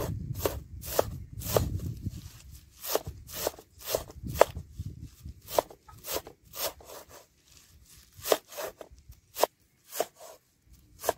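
Cleaver chopping fresh green herbs on a wooden cutting board: sharp knocks of the blade through the leaves onto the wood, about two a second at an uneven pace, with a low rumble under the first few seconds.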